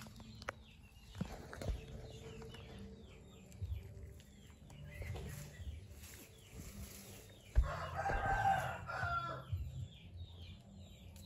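A rooster crows once, a call of about two seconds starting about eight seconds in, over faint high chirping that runs through the rest.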